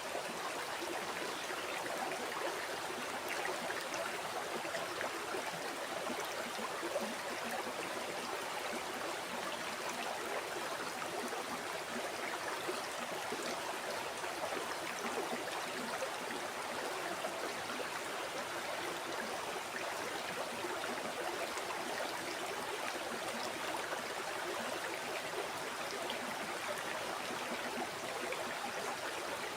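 River water flowing over rocks: a steady rush with fine babbling and splashing detail.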